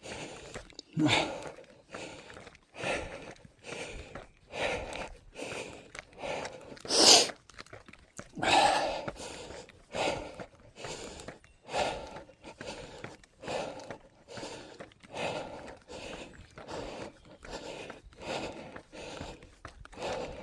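A runner's heavy breathing while going uphill, with loud puffing breaths about every one and a half to two seconds. Quicker, shorter sounds between the breaths fit footsteps on the trail.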